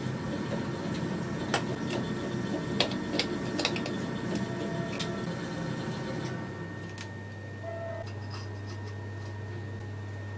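Hands handling and fitting a small steel pencil holder onto a plastic tape measure case: rubbing and scraping with a few sharp clicks, giving way after about six seconds to a steady low hum.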